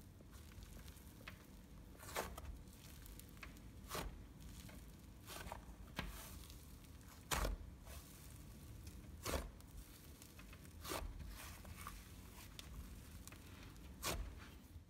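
Slime being handled by hand, with faint sticky clicks and pops every second or two as it is pressed and stretched.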